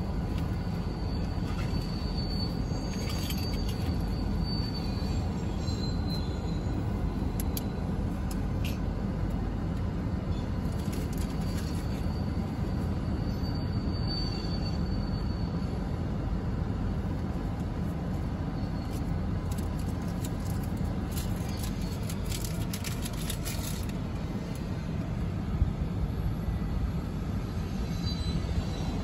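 CSX coal train's open-top coal cars rolling steadily past: a continuous rumble of wheels on rail, with a faint high wheel squeal a couple of times and scattered clicks and clatter, busiest a little past the middle.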